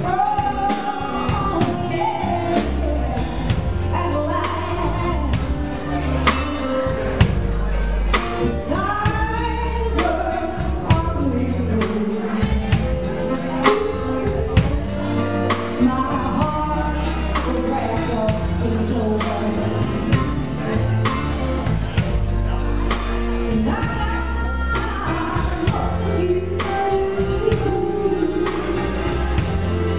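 A live band playing a song, a woman singing lead over drums, keyboards and guitars with a steady beat.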